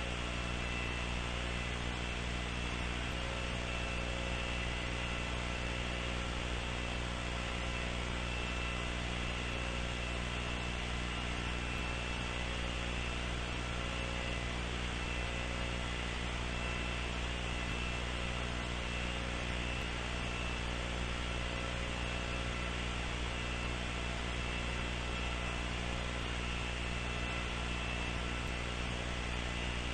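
A steady electrical hum with many overtones over an even bed of hiss, unchanging throughout.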